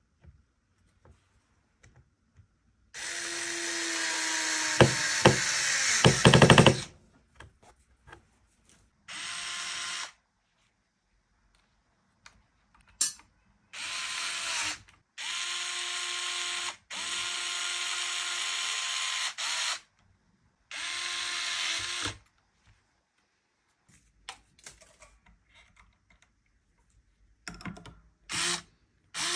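A power drill running in about seven short runs of one to four seconds, its motor pitch sagging as each run stops. A few sharp knocks, the loudest sounds here, come near the end of the first and longest run.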